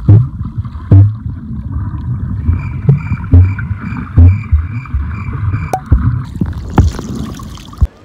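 Muffled underwater noise from a camera held below the surface while snorkeling: a dense low rumble of moving water with sharp clicks and several heavy low thumps as water and hands knock against the camera. A faint pulsing tone comes and goes about twice a second through the middle.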